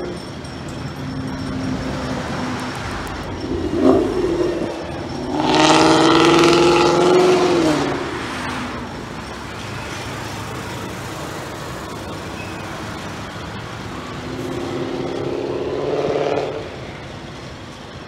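Road traffic passing close by. One vehicle goes by loudly about six seconds in, its engine note dropping in pitch as it passes, and another swells up and fades a couple of seconds before the end.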